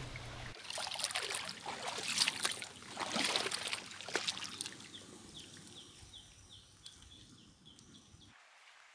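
Shallow seawater splashing and trickling as a dog wades through a tidal pool, with many small crackling splashes, fading out about four seconds in. After that, faint outdoor hush with a row of short high chirps repeating a few times a second.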